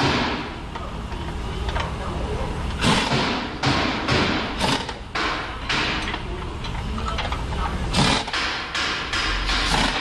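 Irregular knocks and thuds, a dozen or so sharp hits at uneven spacing, over a steady low hum, with indistinct voices.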